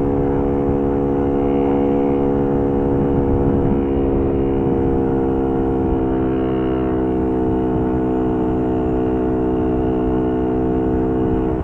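Four-stroke moped engine pulling hard at a steady throttle, holding one nearly constant note with wind rush on the microphone. The note drops suddenly at the very end as the throttle closes.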